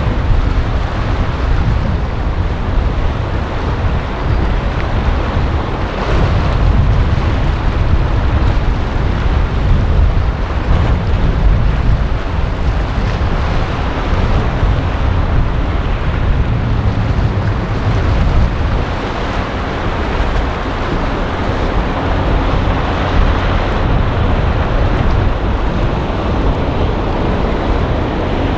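Boat engines running in an ocean inlet over waves and surf, with heavy wind buffeting the microphone throughout.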